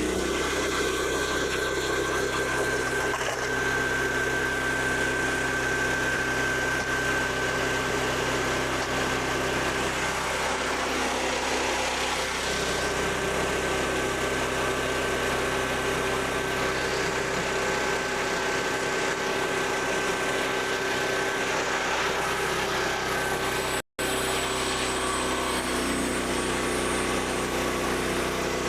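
Small gasoline engine of a Frontier OS27 portable band sawmill running steadily while milling white oak. Its note shifts a little about twelve seconds in and again near the end.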